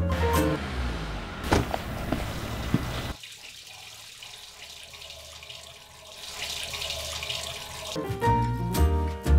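Water running from a tap into a sink for about three seconds, then a quieter hiss that swells towards the end. Music plays at the start and comes back about eight seconds in.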